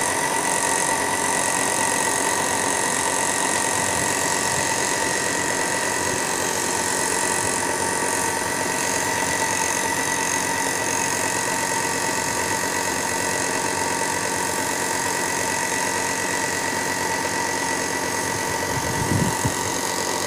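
Air compressor running steadily, feeding a spray gun that hisses as it sprays clear lacquer onto wood. A couple of brief low thumps near the end.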